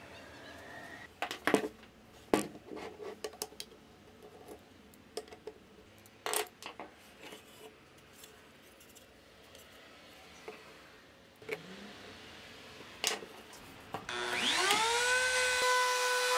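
Scattered knocks and clatter of wood rails and a router sled being handled on a workbench. Near the end a compact router's motor starts, its whine rising quickly and then running steadily at full speed.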